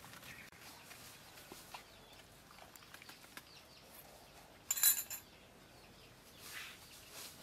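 Quiet yard background with chickens faintly clucking, and a short metallic clatter of a ladle about five seconds in.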